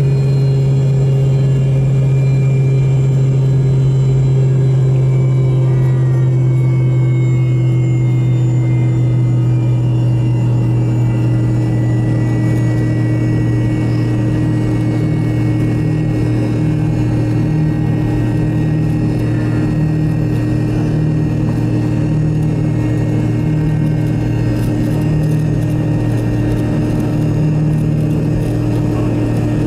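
Pratt & Whitney JT8D-219 turbofan of an MD-88 running at taxi power, heard inside the cabin right beside the rear-mounted engine: a loud, steady drone with a whine above it. The pitch eases down slightly over the first ten seconds or so, then holds.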